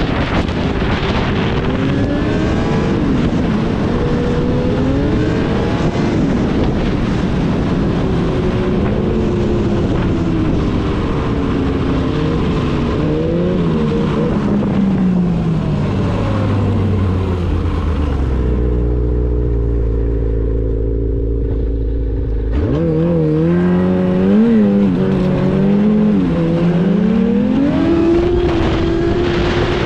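Yamaha Apex snowmobile's four-stroke four-cylinder engine winding down as the sled slows, with wind rushing over the microphone. Past the middle it holds a low steady note for a few seconds with the wind gone, then revs up sharply and climbs again as the sled accelerates.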